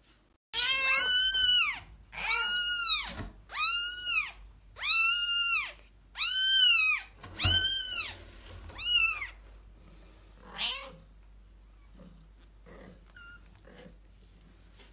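Kitten meowing over and over: about eight high-pitched meows, each rising and then falling in pitch, fading to a faint call after about nine seconds.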